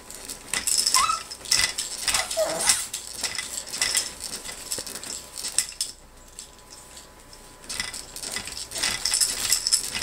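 Baby bouncer seat rattling and clinking as the baby kicks and bounces it, the toys hanging from its toy bar knocking together in quick clusters of clicks, with a lull of a second or two after about six seconds. Two brief high squeaks about one and two and a half seconds in.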